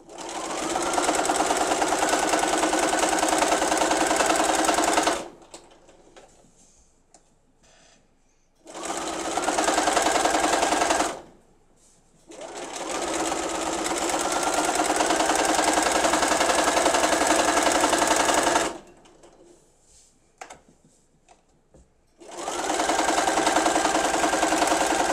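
Domestic sewing machine stitching through canvas drop cloth in four runs of a few seconds each, every run speeding up to a steady whir with a rising whine, separated by short pauses. The feed dogs are not feeding, so the fabric is pulled through by hand.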